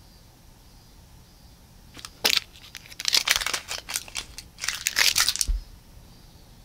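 Crackly crinkling and rustling as a small feather cat toy is squeezed and fiddled with in a person's hand, in two bouts starting about two seconds in, ending with a soft low thump.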